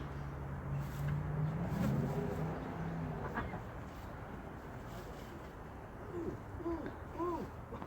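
Backyard poultry calling: a low drawn-out cooing call over the first few seconds, then a handful of short, arched calls in quick succession near the end.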